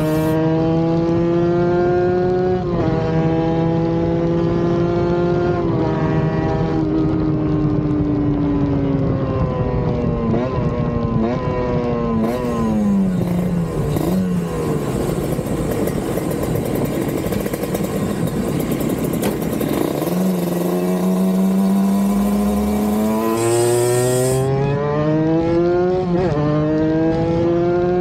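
Kawasaki Ninja RR 150's ported two-stroke single-cylinder engine revving hard under acceleration, its pitch climbing with short drops at upshifts about three and six seconds in. Then the revs fall away. A loud rushing noise covers the engine through the middle, and the engine climbs again through the gears near the end.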